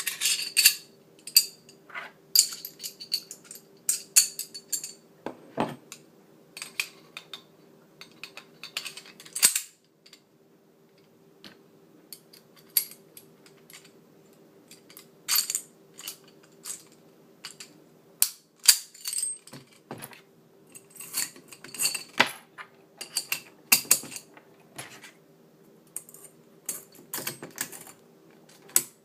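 Springfield 1911 .45 pistol being reassembled by hand: a long run of sharp metallic clicks and clacks as the steel parts are fitted together, with a quieter stretch about ten seconds in. A faint steady hum runs underneath.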